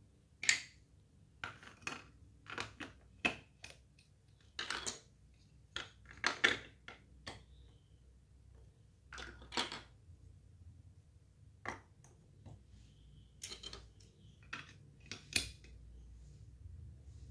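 Plastic LEGO Duplo bricks clacking and clicking as they are picked up, set down and snapped onto a plastic baseplate: irregular short clacks a second or two apart.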